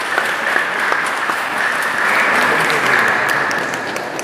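Audience applauding, many hands clapping together; the clapping builds to its fullest in the middle and thins out toward the end.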